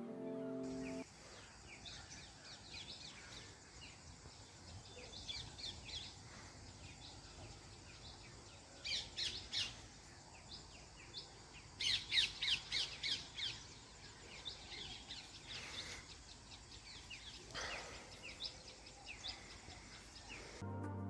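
Birds chirping outdoors over a faint steady hiss, with two louder runs of rapid chirps, about nine and twelve seconds in.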